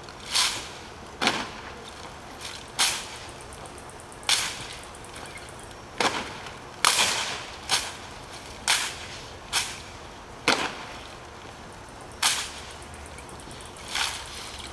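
About a dozen sharp cracks and slaps at uneven intervals, each with a short ring-out, from precision rifle drill: gloved hands slapping the stocks of bayonet-fixed M1 Garand rifles, and rifle butts and heels striking the pavement.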